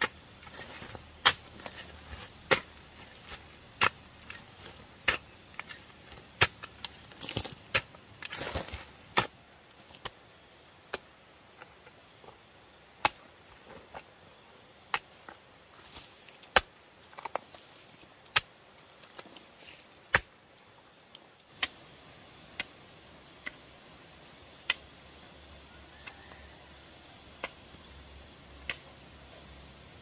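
Hand hoe chopping into loose garden soil, breaking up the ground for a bed: a sharp strike about every second and a quarter, harder in the first ten seconds and lighter after, with soil crumbling between strokes.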